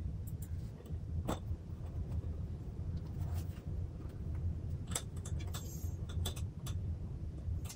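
Scattered small metallic clicks and ticks as a thin metal tool is worked into the stand bracket on an aluminium monitor back, over a steady low hum.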